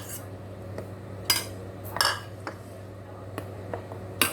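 A kitchen utensil clinking against a mixing bowl as banana slices are stirred into batter, with several separate knocks at uneven intervals over a steady low hum.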